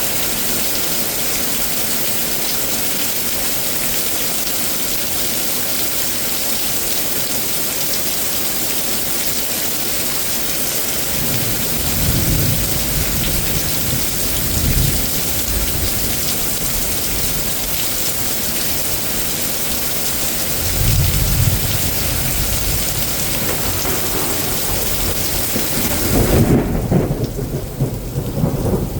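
Heavy thunderstorm rain with a steady hiss, while thunder rolls in rumbles about twelve seconds in, again around twenty-one seconds, and loudest near the end, where the rain's hiss suddenly thins out.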